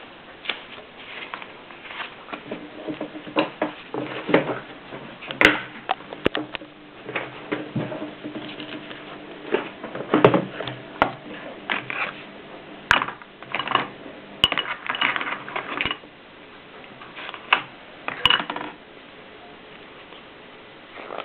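Mignon index typewriter typing: irregular mechanical clicks and clacks as characters are struck, some sharper and louder than others, over a faint steady hum. The clicking stops near the end.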